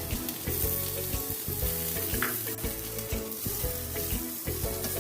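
Sliced mushrooms and onions sizzling steadily in hot oil in a frying pan, stirred now and then with short scraping clicks.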